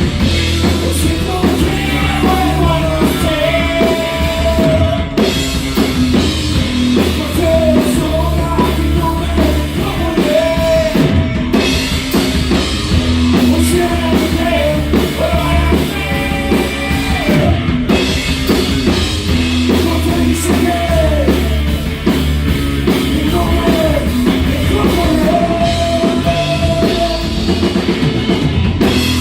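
Live rock music: a band playing with drums, bass and electric guitar under a singer's voice.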